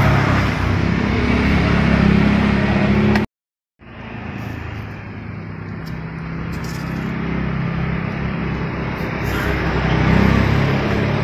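Street traffic, with motorbike and car engines running past. It cuts out to silence for about half a second a few seconds in, then comes back.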